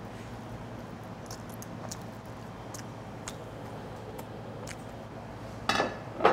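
Quiet mealtime sounds: faint clicks of chopsticks and dishes over a steady low hum, then two short, louder sounds near the end as she drinks from a glass.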